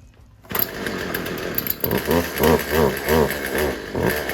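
Poulan Pro 42cc two-stroke chainsaw engine running roughly, starting suddenly about half a second in, then surging unevenly about three times a second. It isn't running right at idle, the sign that its low-speed carburetor mixture needs adjusting.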